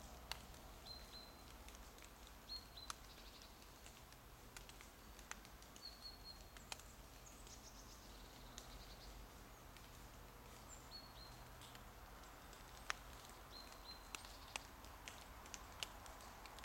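Near-silent woodland with faint, thin, high bird calls every few seconds. Scattered small clicks and rustles come from a puppy stepping about on dry fallen leaves.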